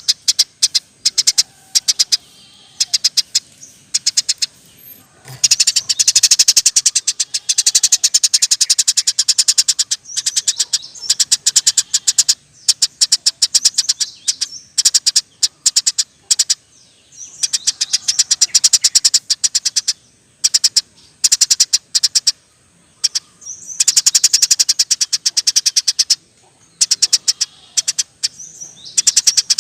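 Eurasian tree sparrow chirping fast and steadily in long rolling runs of rapid high chirps, with short pauses between the runs.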